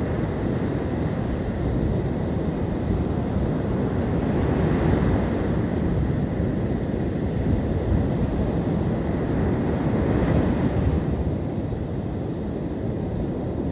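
Sea surf washing on the beach, with wind buffeting the microphone. The wash swells twice, about five seconds in and again about ten seconds in.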